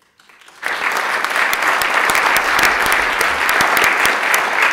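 Audience applauding: many people clapping. The applause breaks out about half a second in and holds steady.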